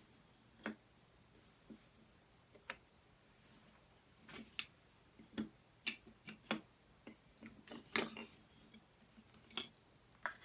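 Wooden jigsaw puzzle pieces clicking and knocking as they are handled and fitted into the puzzle board: faint, irregular taps, coming more often after the first few seconds.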